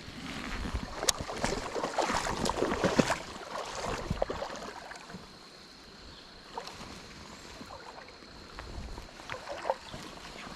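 Creek water sloshing and splashing around the wading angler for about three seconds, with scattered small clicks, then quieter water with a few more clicks.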